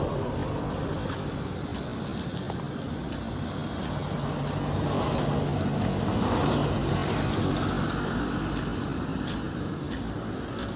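Steady vehicle noise from travelling along the road: a low engine hum under road and wind rumble, swelling a little midway.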